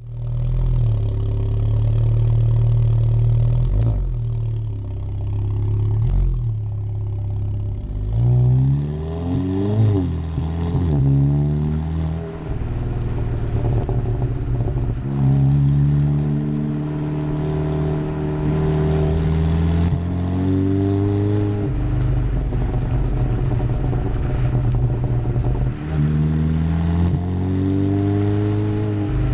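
Seat Leon Cupra's 2.0 TSI turbocharged four-cylinder running through a Milltek Sport aftermarket exhaust, loud and droning, accelerating several times: the engine note climbs in pitch and drops back at each gearshift, between stretches of steady cruising. A couple of short knocks come in the first few seconds.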